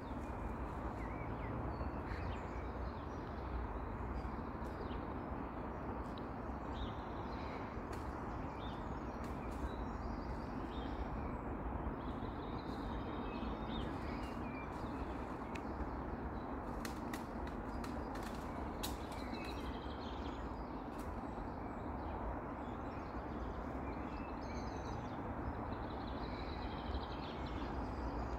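Faint, scattered chirps of small songbirds over a steady rushing background noise, with a few short sharp clicks.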